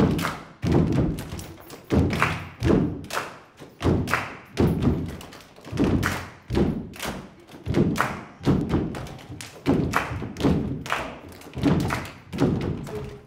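Drums struck together by a group in unison, a steady, heavy beat of about three hits every two seconds, ringing in a large room.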